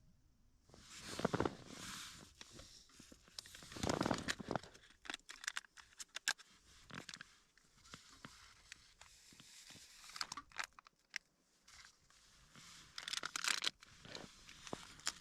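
Rustling and crinkling of packaging and gear being handled inside a small tent, with irregular bursts and many small clicks and knocks.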